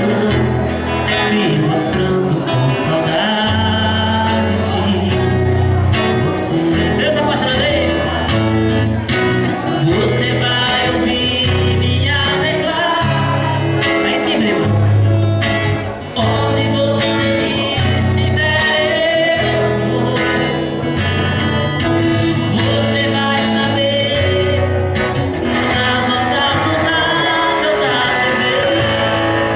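Live performance of a song: a man singing into a microphone while strumming an acoustic guitar, with an electric guitar playing alongside.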